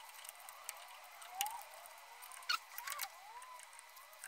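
Light clicks and handling noise as gloved hands fit an aluminium carburettor top onto a fixture held in a stopped lathe chuck, with a few short squeaks that rise and fall in pitch.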